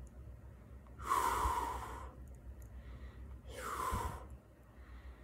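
A man breathing heavily close to the microphone: two long, noisy breaths, one about a second in and another near four seconds in.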